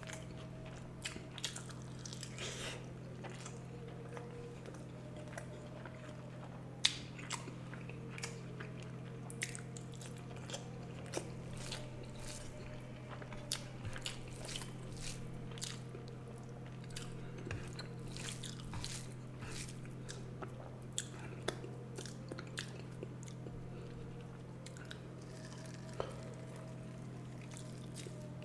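Close-up eating sounds of rice with fish curry and egg curry: irregular chewing, smacking and crunchy bites, with a steady low hum underneath.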